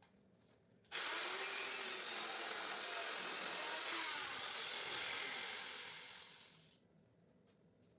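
Angle grinder switched on, running steadily with a high whine for about four seconds, then switched off and winding down.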